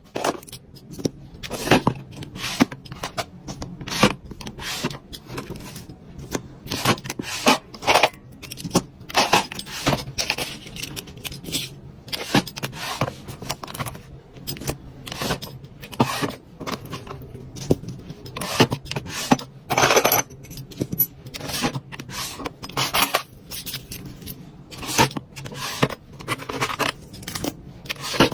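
Small accessories and packaging being handled during an unboxing: an irregular run of light clicks, taps and scrapes.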